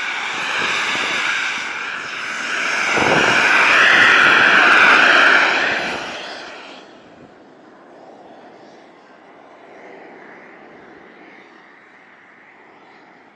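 Radio-controlled model airplane's engine whining at high power as it takes off, loudest about four seconds in, then fading quickly as the plane flies off into the distance.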